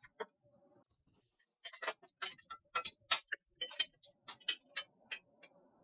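Screwdriver and screws clicking and tapping during the mounting of a 360mm AIO radiator into the top of a PC case. After a quiet first second and a half comes a quick, irregular run of light clicks that stops shortly before the end.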